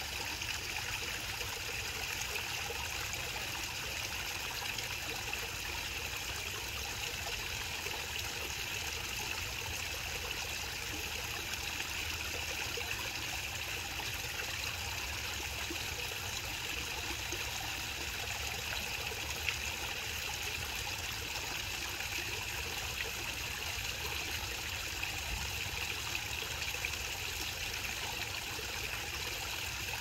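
Small garden waterfall spilling over a rock ledge into a shallow pond: a steady trickle and splash of falling water.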